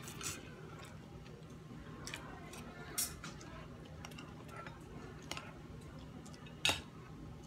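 Close eating sounds: faint chewing and mouth clicks, with a few sharper clicks, the loudest about three seconds in and near the end, as a metal spoon scoops food from a glass bowl.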